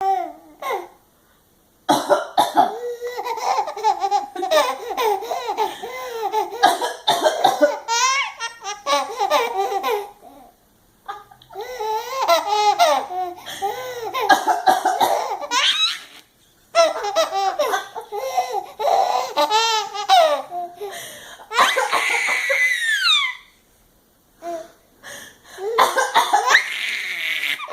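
Baby girl belly-laughing in repeated fits, set off by an adult's pretend coughs and sneezes. The laughter comes in bouts of several seconds with brief pauses between, and includes one high squeal that falls in pitch about two-thirds of the way through.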